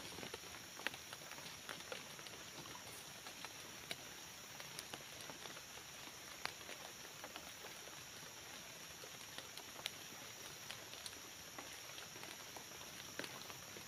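Faint scattered snaps and rustles of twigs and dry leaf litter handled by hand as a ground snare is set, over a steady high hiss.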